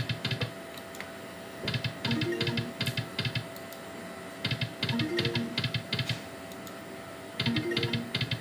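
Video slot machine reels stopping one after another, each stop a click with a short note a step higher than the last. This repeats for three spins about three seconds apart.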